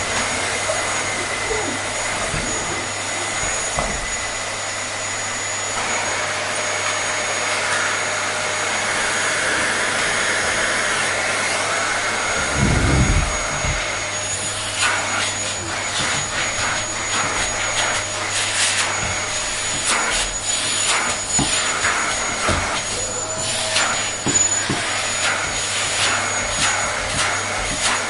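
Vacuum cleaner running steadily, a rushing noise with a thin high whine. There is a low thump about midway, and from about halfway on many irregular small clicks and crackles sound over the motor.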